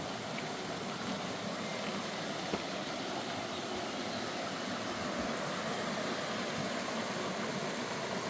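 Waterfall rushing steadily, an even wash of falling water. A single faint click about two and a half seconds in.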